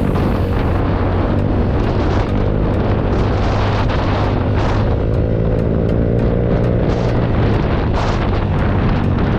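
Yamaha Mio Soul i 125 scooter's single-cylinder four-stroke engine running through an aftermarket Apido V3 exhaust pipe, its note shifting in pitch about halfway through as the throttle changes.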